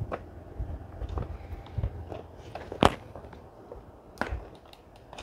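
Handling clicks and knocks from a vintage camera being worked at to get it open, with a sharp click a little under three seconds in and another about four seconds in.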